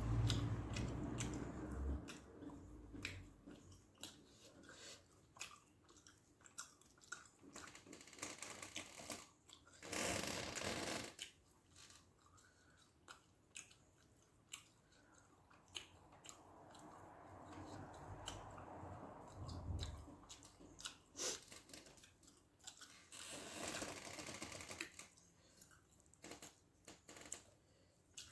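A person chewing and eating rice with fish gravy, with many short wet smacks and clicks of the mouth. Two longer noisy stretches come about ten seconds in and again a little past twenty seconds.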